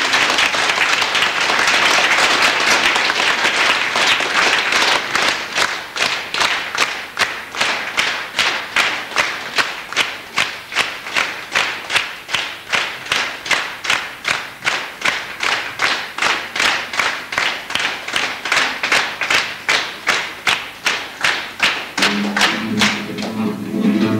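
Audience applause that settles into clapping in unison, about two claps a second. Near the end, acoustic guitars and voices come in as the next song starts.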